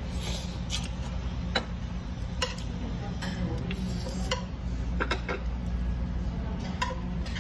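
Close-up eating sounds of pork back-bone being gnawed by hand: scattered sharp clicks and smacks at irregular intervals over a steady low hum.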